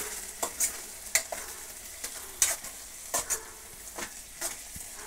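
A spatula stirring and scraping thick tomato gojju around a pan on the stove, in an irregular run of about nine strokes, over a soft sizzle of the mixture frying in oil.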